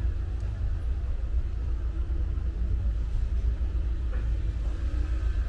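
City street ambience dominated by a steady low rumble.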